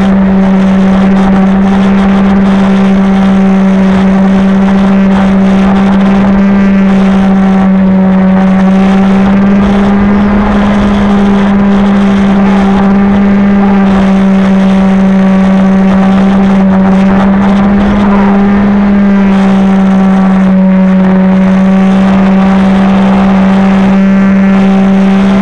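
Electric motor and propeller of a remote-control airplane running at a steady, loud whine, heard close up from on board. The pitch shifts slightly up and down a few times as the throttle changes.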